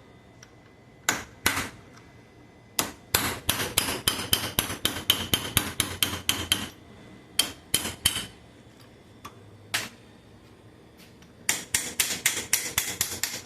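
Hammer blows on metal while the first-and-second shift fork is knocked out of a Chevrolet Cobalt manual gearbox: a couple of single strikes, then rapid runs of about four ringing taps a second, with pauses between.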